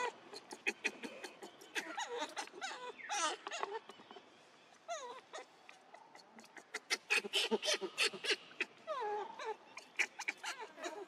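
Macaque monkeys squealing and whimpering in several bouts of high calls that slide down in pitch, mixed with many sharp clicks.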